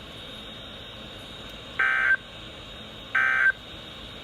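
Two short bursts of warbling digital data tone from a NOAA Weather Radio broadcast, about 1.3 seconds apart, over faint hiss: SAME end-of-message codes that close the severe thunderstorm warning just read out.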